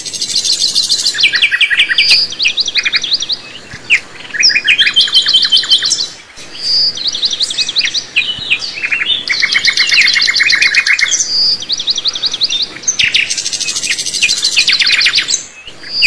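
A songbird singing phrases of fast, rapidly repeated high notes, with a short clear whistle between phrases and brief pauses about every few seconds.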